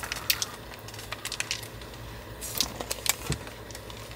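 Faint, scattered crackles and light clicks of someone handling and eating a crisp fried streusel pastry (twigim soboro).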